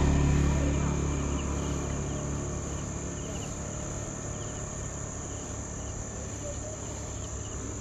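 Crickets and other night insects trilling steadily: a high, even drone with faint chirps repeating at regular spacing. A low rumble fades away over the first couple of seconds.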